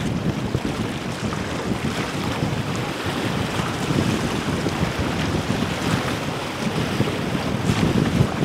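Wind buffeting the microphone over choppy inlet water, with waves washing: a steady, rough rumble with no distinct engine note.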